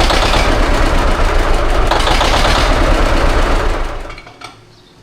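John Deere 730 two-cylinder tractor engine running steadily, then shut off about four seconds in, its sound dying away quickly.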